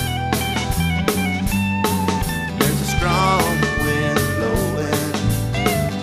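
Instrumental break of a song: lead guitar over bass and a steady drum beat, with bent, wavering notes about halfway through.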